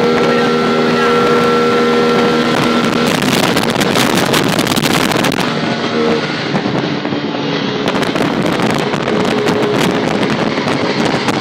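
Small auto-rickshaw engines running flat out at speed, a steady pitched drone in the first few seconds, then mostly covered by wind buffeting the microphone and body rattle from the open cab.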